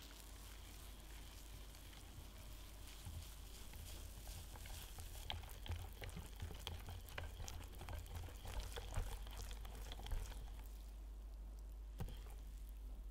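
Wire balloon whisk beating cocoa sponge batter in a glass bowl: a quick, continuous run of light ticks and wet stirring as the wires work through the batter against the glass. The ticks thin out near the end.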